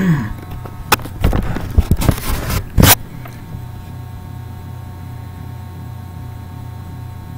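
Handling noise from a tin of dip tobacco being moved: a run of knocks and scrapes for about two seconds, ending in one sharp knock about three seconds in. A steady low hum runs underneath and is all that is left afterwards.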